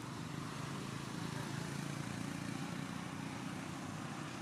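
Steady low engine rumble of a passing motor vehicle, swelling slightly a second or two in and easing off.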